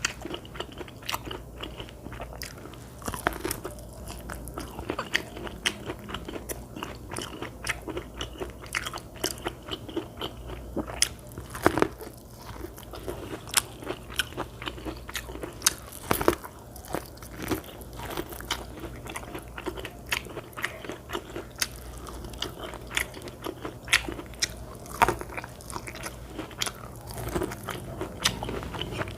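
Close-miked eating of corn on the cob: irregular crisp bites and chewing, many sharp little clicks as kernels are bitten off. A steady low hum runs underneath.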